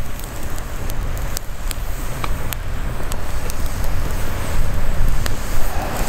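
Small campfire of wet, freshly laid sticks burning, crackling with scattered sharp pops over a steady low rumble.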